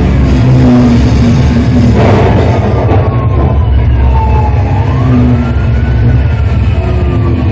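Simulated gale-force wind in a storm-experience room buffeting the microphone in a loud, steady rumble, with a fainter wailing tone that slides down, then rises and falls again.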